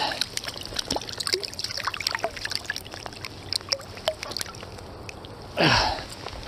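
Water trickling and dripping, with small clicks and taps as a freshly landed brown trout is handled and a jerkbait is worked out of its mouth. A brief louder noisy burst, falling in pitch, comes near the end.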